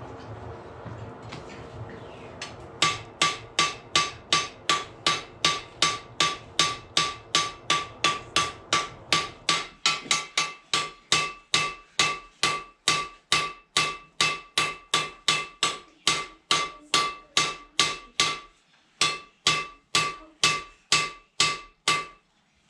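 Blacksmith's hammer striking hot steel on an anvil, about two and a half blows a second, each blow with a bright metallic ring. The hammering starts about three seconds in and breaks off briefly twice near the end. He is drawing out and shaping a forged knife.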